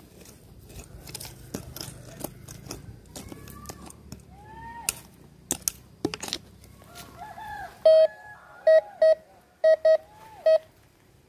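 Metal detector signalling a buried target: short tones rise and fall as the coil sweeps across it, then six sharp, loud beeps at one pitch come in the last few seconds. Many short clicks and scrapes come at the start.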